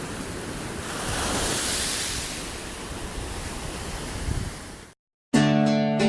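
Steady rush of ocean surf that swells about a second in, eases off and cuts out after about five seconds; after a brief silence, acoustic guitar music starts.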